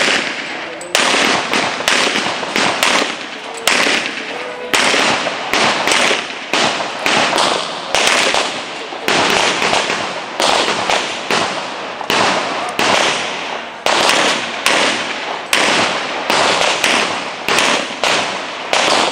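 Handgun shots on an IPSC practical shooting stage: dozens of sharp cracks, each with a short echo, fired in quick irregular strings with brief pauses between them.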